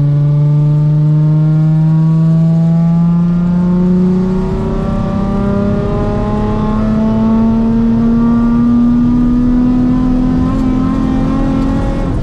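Nissan 350Z's 3.5-litre V6, with test pipes and the muffler deleted, pulling at full throttle in third gear: the revs climb steadily for about twelve seconds, then drop off right at the end. This is a data-logging pull from 2000 to 6000 RPM on a fresh ECU remap.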